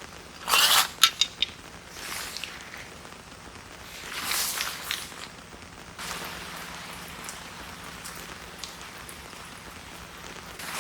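Steady rain falling. About half a second in there is a loud brief burst of noise, followed by a few sharp clicks, and softer swells come about 2 and 4 seconds in.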